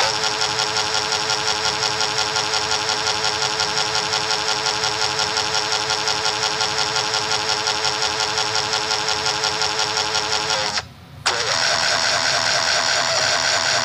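Loud, harsh, distorted sound effect: a buzzing pitched tone with many overtones, pulsing evenly and rapidly. It drops out for a moment about eleven seconds in, then carries on.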